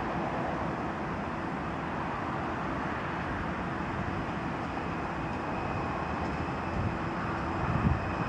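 Stadler FLIRT electric multiple unit approaching, a steady rumble of wheels on rails with a low hum, getting a little louder near the end.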